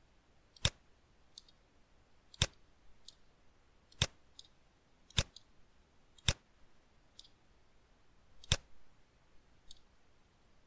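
Computer mouse button clicking: six sharp single clicks a second or two apart, with fainter clicks between.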